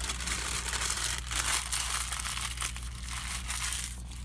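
Paper food wrapper being crinkled and crumpled close to the microphone, a continuous rustling that swells around the middle.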